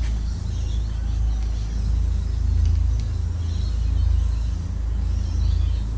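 A steady low rumble runs throughout, with faint squeaks from a marker writing on a whiteboard.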